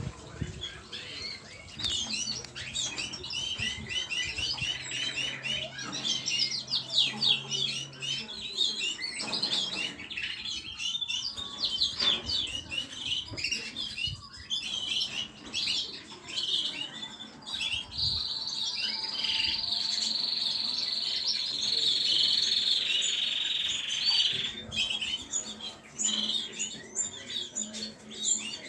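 Small pet cage birds chirping and twittering in quick, overlapping calls, with one bird singing a long, steady high trill for several seconds past the middle.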